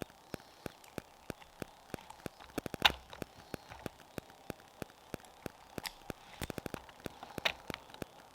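A run of faint, irregular clicks and ticks, with two louder sharp clicks: one about three seconds in and one near the end.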